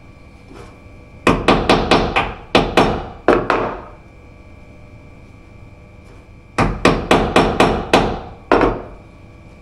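Hammer blows on the wooden counter, knocking away material to expose the heads of stuck screws for extraction. A quick run of about ten strikes starts about a second in, a pause of a couple of seconds follows, then another run of about six and one last blow near the end, each ringing briefly.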